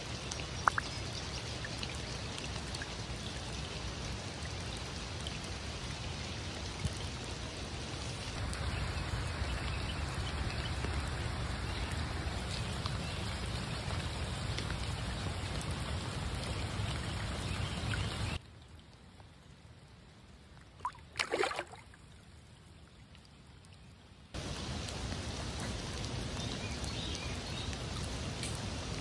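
Steady rain falling on the river and shore, an even hiss. It drops away for several seconds in the middle, where a couple of short sharp sounds stand out.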